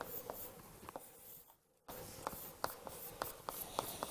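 Chalk tapping and scratching on a blackboard as numbers and symbols are written, in quiet short strokes with small pauses between them.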